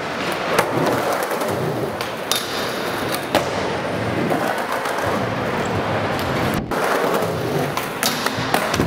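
Skateboard wheels rolling on smooth concrete in a large indoor hall, broken by several sharp clacks of the board striking ramps and rails.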